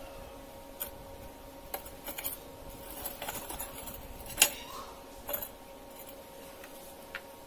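Light clinks and knocks of a freshly welded steel rod piece being lifted, turned and set back down on a metal base, with a sharp clank about four and a half seconds in. A faint steady hum runs underneath.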